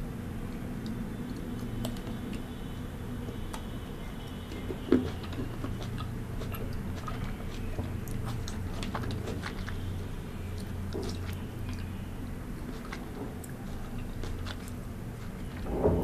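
Close-miked chewing of a fresh cherry, with scattered small wet mouth clicks and one sharper click about five seconds in.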